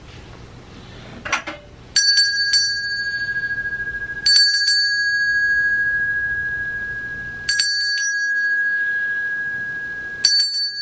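Small metal hand bell shaken in four short bursts of two or three strikes, a few seconds apart, with one clear note ringing on between the bursts. It is being rung to call someone into the room.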